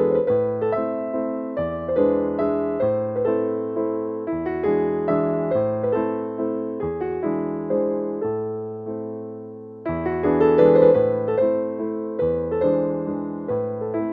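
Background piano music: chords and melody notes struck at a steady pace, each note fading after it is struck, with a louder phrase beginning about ten seconds in.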